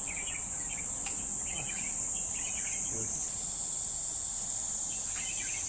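Steady, high-pitched drone of a summer insect chorus that holds level throughout and shifts slightly a little past halfway.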